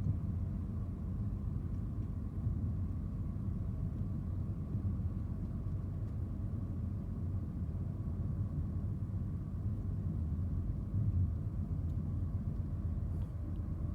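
Steady road and engine rumble of a moving Ford car, heard from inside the cabin.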